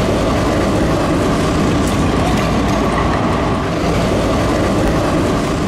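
Tram running along the track: a steady loud rolling rumble with a faint steady whine.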